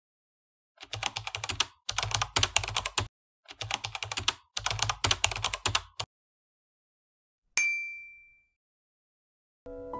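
Keyboard-typing sound effect: four quick runs of key clicks over about five seconds, then a single bright ding about two seconds later that rings out for about a second.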